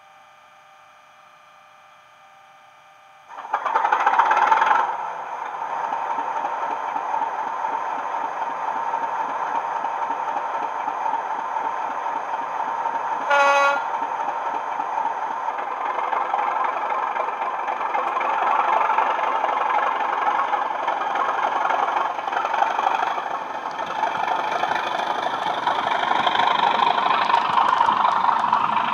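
Bachmann Class 37 model's factory-fitted SWD DCC sound decoder playing a diesel locomotive recording through a pair of 20x20 mm megabass speakers. A quiet idle jumps to a loud burst about three seconds in, then the engine runs on loudly, with a short horn toot about halfway through.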